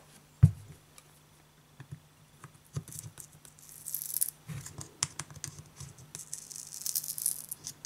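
A single loud knock about half a second in, then light clicks and scraping as a thin metal pry tool is worked under the glued-in battery of a heated Huawei Ascend Mate 7. Hissy scraping comes in the middle and again near the end, over a faint steady low hum.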